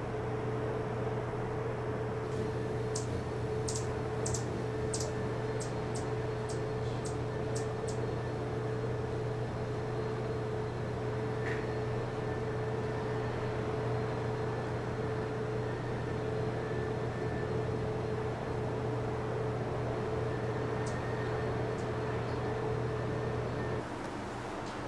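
Steady mechanical hum with a held mid-pitched tone over a low drone, cutting off abruptly near the end. In the first several seconds there is a quick run of about eight short, very high ticks.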